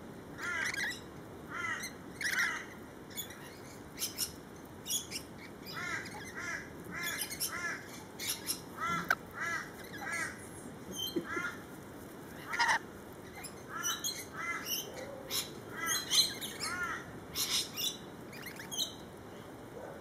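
Rainbow lorikeets calling: short chirps in quick runs of three or four, mixed with sharp, high screeches.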